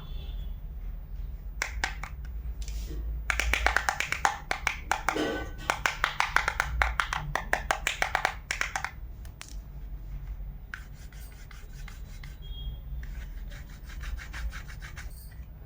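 Quick repeated scraping and rubbing strokes from small kitchen-toy utensils being worked by hand, several strokes a second. They are loudest between about three and nine seconds in, then fainter rubbing follows.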